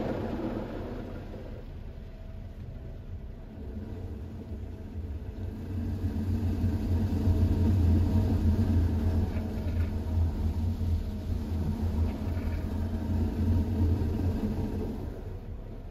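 Mark VII soft-touch car wash working over the vehicle, heard from inside the cabin: a low rumble of the spinning cloth brushes and machinery. It grows louder about five seconds in as a brush sweeps the rear window, then eases off near the end.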